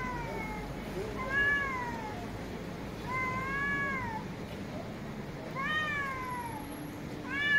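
Two domestic cats in a face-off yowling at each other: a long drawn call trails off just after the start, then drawn-out yowls about a second long, each rising and then falling, come roughly every two seconds, the loudest near the end. These are the threat calls of a territorial standoff.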